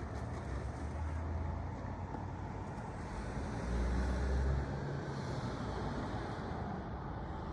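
Steady low rumbling background noise with no distinct bangs or other events.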